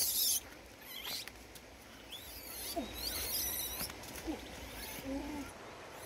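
A young monkey's high-pitched squeaky calls: a loud one right at the start, then softer wavering squeaks in the middle.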